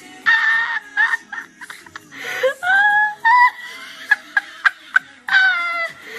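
High-pitched laughter and squeals in short bursts over music, with a few short sharp hits between them.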